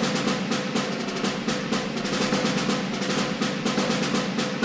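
A steady snare drum roll, the rapid strokes running evenly at a constant level.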